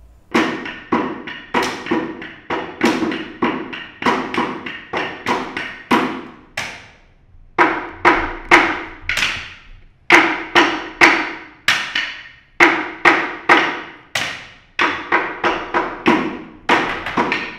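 Hammer striking over and over, about two blows a second, each blow ringing briefly, with two short pauses.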